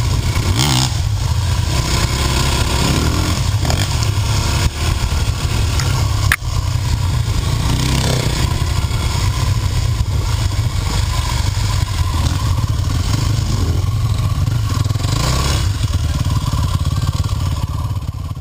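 Yamaha dirt bike engine running under way, its pitch rising and falling with the throttle. A single sharp click about six seconds in.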